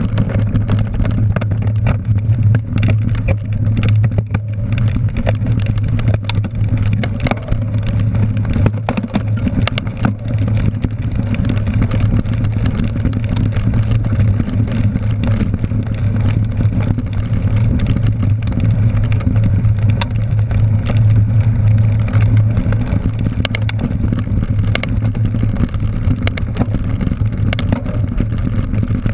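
Cyclocross bike ridden fast over bumpy grass and dirt, picked up by a handlebar-mounted GoPro: a loud, steady low rumble of wind and tyres, with sharp clicks and rattles from the bike over bumps.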